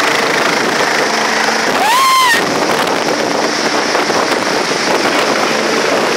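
Steady engine noise, with a high, rising cry from a voice about two seconds in.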